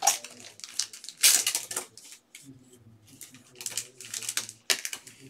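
Irregular rustling and clicking handling noises, with a longer crinkling stretch about a second in and a few more clusters of clicks near the end.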